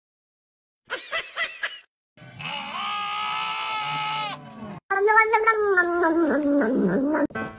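Young sheep and a goat kid bleating in turn: a lamb's short quavering bleat, then a lamb's long steady bleat that cuts off suddenly, then the kid's long wavering bleat that falls in pitch.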